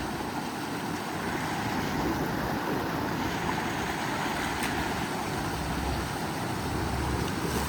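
Creek water rushing steadily over rocks, an even hiss with no changes.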